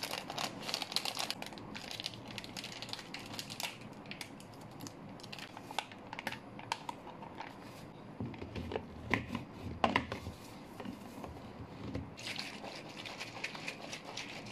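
Plastic pouch crinkling as powdered drink mix is poured into a plastic shaker bottle of water, with sharp clicks and knocks of the plastic. Near the end the bottle is shaken.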